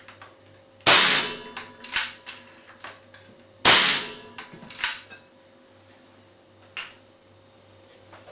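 Two unsilenced shots from a Webley FX2000 .177 pre-charged pneumatic air rifle: two sharp cracks about three seconds apart, each followed about a second later by lighter mechanical clicks.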